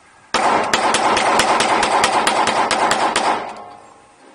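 Beretta Brigadier 9mm pistol fired rapidly, about five shots a second for some three seconds, starting about a third of a second in. Each shot echoes heavily in the enclosed indoor range.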